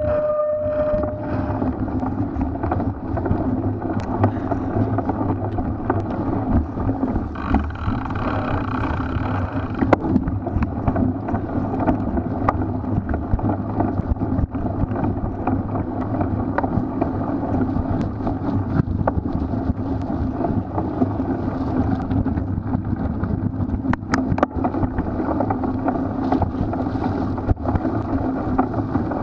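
Riding noise from a cyclocross bike racing over a muddy course: wind rushing over the microphone, tyres rolling through mud, and frequent small rattles and knocks from the bike over rough ground. A short high tone sounds at the very start and fades out about a second and a half in.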